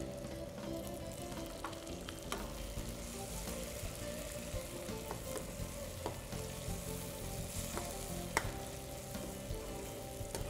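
Boneless chicken pieces sizzling as they fry in hot oil with spices in a non-stick pan, stirred with a steel slotted spatula that scrapes and clicks against the pan now and then. This is the dry-frying stage, with no water added, as the chicken crisps in the oil.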